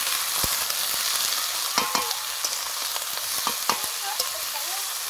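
Shredded cabbage and potato pieces sizzling in hot oil in an aluminium karahi while a metal spatula stirs them. There are a handful of sharp clinks as the spatula knocks against the pan, two of them close together about two seconds in.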